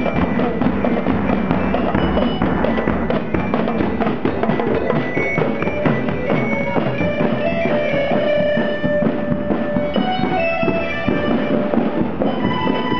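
Children's marching band playing a tune while parading: bass drums and cymbals beating under marching glockenspiels and melodicas carrying the melody.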